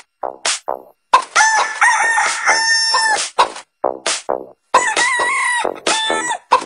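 Techno dance track made from chopped-up chicken and rooster sounds: short clipped clucks in a stuttering rhythm, cut off sharply between hits, with two longer crowing phrases, one about a second in and one about five seconds in.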